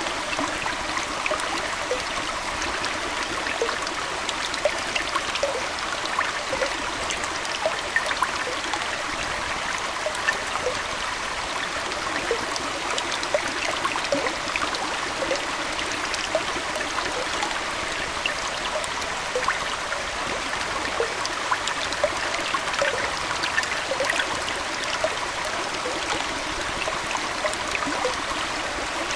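Aquarium water flowing and trickling steadily, with many small bubbling pops and splashes scattered through it.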